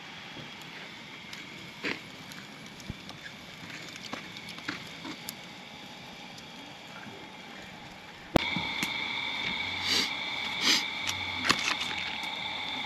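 Wood campfire crackling under a wire cooking grate, with scattered sharp pops. About eight seconds in, a sudden cut brings a louder background with steady high-pitched tones and occasional clicks.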